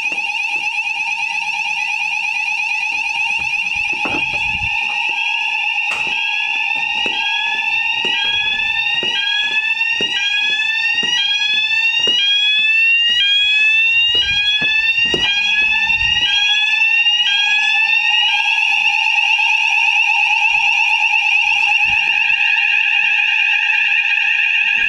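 Building fire alarm sounders going off during a routine weekly alarm test. A steady, high, warbling tone runs throughout. From a few seconds in until about eighteen seconds, a second sounder joins it, sweeping upward about once a second.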